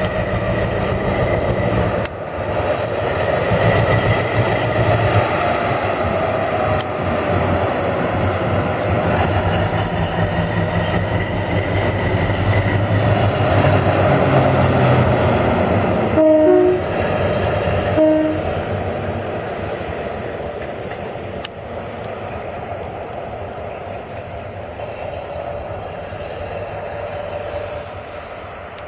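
Class 60 diesel locomotive working under power as it passes, its eight-cylinder Mirrlees engine loud and steady, then fading away over the last several seconds. A little past halfway, a two-tone horn gives two short blasts.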